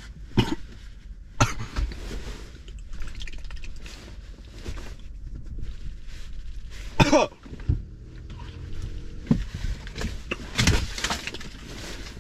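A man coughing and clearing his throat in several separate fits after a long draw on a cannabis vape cart, the harshest about seven seconds in.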